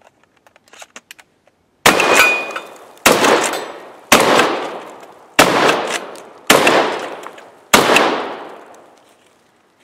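Shotgun firing six shots in quick succession, a little over a second apart, each followed by a long fading echo. A few faint clicks come just before the first shot.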